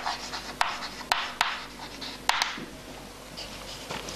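Chalk scratching and tapping on a chalkboard as words are written by hand. There are several sharp taps in the first two and a half seconds, and it is quieter after that.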